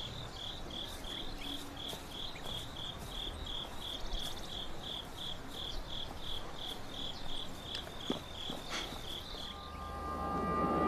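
A cricket chirping in an even rhythm, about three chirps a second, which stops a little before the end as music swells in.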